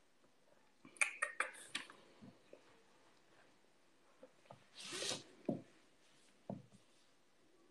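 Faint handling noise close to a desk microphone in a small room: a quick run of small clicks and rustles about a second in, a short rush of noise around the middle, then a couple of soft knocks.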